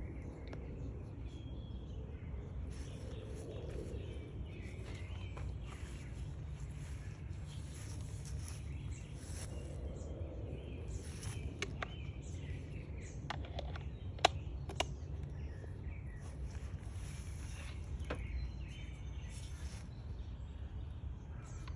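Outdoor ambience: a steady low rumble with birds chirping and insects. A few sharp clicks stand out, the loudest a little past the middle.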